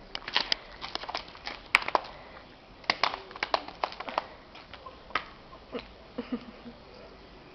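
Irregular light clicks and taps from a small pet, the sharpest about two seconds in.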